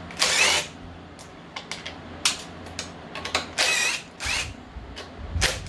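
Cordless power driver with a 10 mm socket running in several short bursts of motor whine, with small clicks between them, as it backs bolts out of a mower engine's air filter housing.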